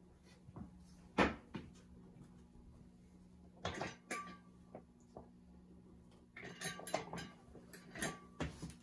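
CEC Emperor ceiling fan running on low speed with a steady electrical hum, typical of fans on a solid-state speed control. Sharp clicks and knocks come now and then, clustered near the end.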